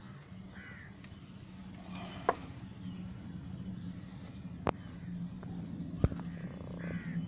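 Quiet outdoor ambience: a steady low hum with a couple of short bird chirps, and three sharp clicks spread through it.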